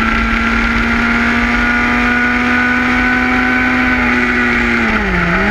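Sport motorcycle engine running at steady revs while riding, with wind and road noise. Near the end the engine note dips briefly and comes back up.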